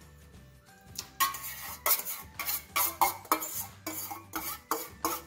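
Metal spoon scraping and clinking against the inside of a small stainless-steel bowl, scraping out the leftover milk and yogurt mix. It is a quick run of sharp scrapes and clinks, about three a second, starting about a second in.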